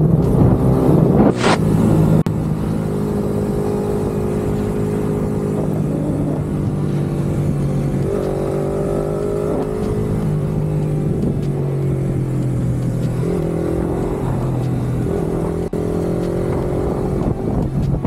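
Motorcycle engine running under way, its pitch drifting up and down slightly with the throttle. It is louder for the first two seconds, with a brief sharp sound about a second and a half in.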